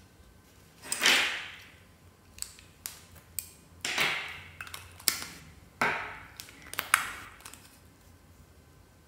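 Hands squishing and pressing slime: four louder squelches with short fading tails, and small clicks and pops of air pockets between them.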